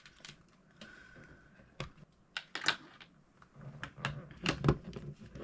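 Small neodymium magnets being handled, clicking and snapping against each other in sharp, irregular clicks and knocks, the loudest about two and a half and four and a half seconds in.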